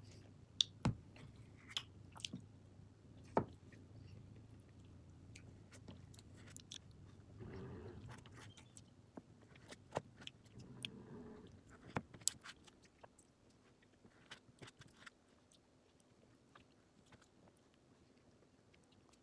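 Close, quiet eating sounds: chewing and lip-smacking on chocolate cookie ice cream, with sharp clicks and scrapes of a spoon in the ice cream cup. The sounds grow fainter and sparser in the last few seconds.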